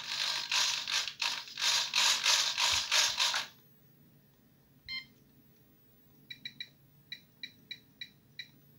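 Small 9 g hobby servos whirring in a run of quick bursts for about three and a half seconds as the transmitter sticks move the elevons. Then a FlySky FS-i6 transmitter beeps once, and gives a quick run of about nine short key-press beeps as its menu is stepped through.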